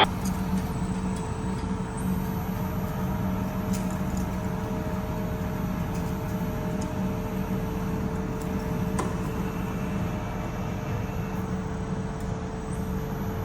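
CNC corrugated-sheet curving machine running steadily as its rollers curve the sheet, a constant motor hum with a few faint clicks.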